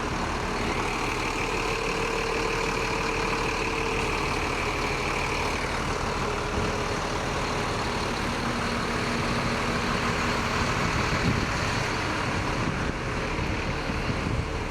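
Heavy diesel bus engine idling steadily. A thin, high, steady whine sits over it for the first few seconds.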